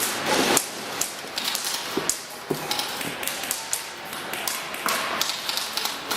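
Airsoft guns firing in irregular single shots and short strings, a scatter of sharp clicks and cracks several times a second, with a louder noisy burst right at the start.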